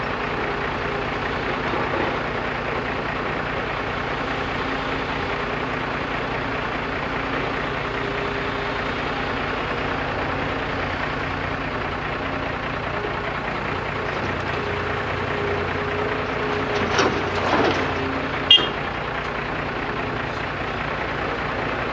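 Heavy diesel engine running steadily, with a couple of brief louder rasps and one sharp metallic knock near the end.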